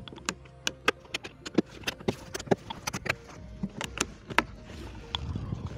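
Hard plastic rifle case being handled: a quick, irregular run of sharp plastic clicks and knocks.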